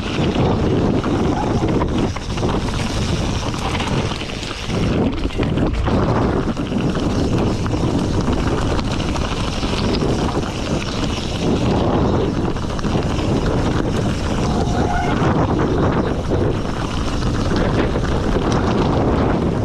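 Mountain bike riding fast down a rocky singletrack: tyres crunching over loose stones and the bike rattling with many small knocks, under heavy wind noise on the microphone.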